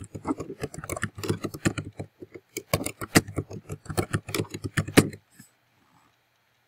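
Typing on a computer keyboard: a quick run of keystrokes that stops about five seconds in.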